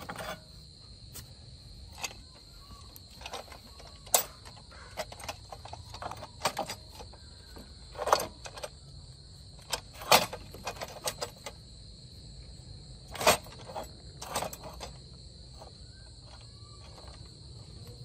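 Irregular metal clanks and knocks from a steel ridging plough attachment being handled and fitted onto a mini tiller, loudest about ten and thirteen seconds in. Crickets chirr steadily throughout.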